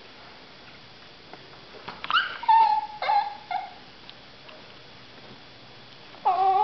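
Small dog giving short high-pitched whines while begging for food: about four in quick succession a couple of seconds in, and one more near the end.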